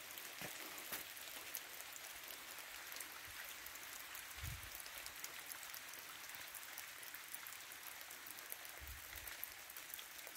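Rain falling steadily on trees and ground: a faint, even hiss scattered with fine drop ticks. Two brief low thumps come about midway and near the end.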